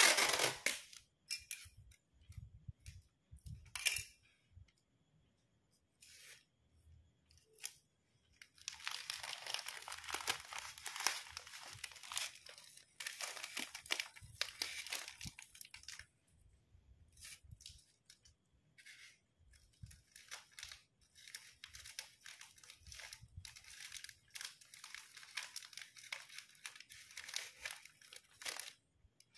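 Crinkly wrapping material being handled and folded: two long stretches of crinkling, tearing-like rustle, with scattered taps and clicks between them and a sharp knock right at the start.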